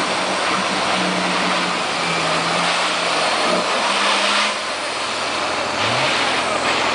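A Nissan Patrol Y60 4x4's engine revving under load as the truck pushes through mud and water. The revs hold with small steps, ease off about four and a half seconds in, and climb again near the end.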